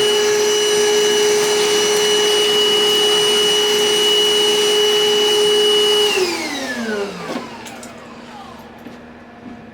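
Milwaukee M18 cordless wet/dry vac running with a steady whine, then switched off about six seconds in, its pitch falling as the motor spins down.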